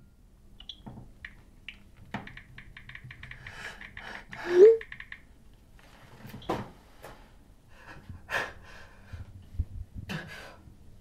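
Quick clicks of typing on a phone and laptop keyboard, with scattered knocks and breaths. About halfway through comes a short rising sound, the loudest in the clip.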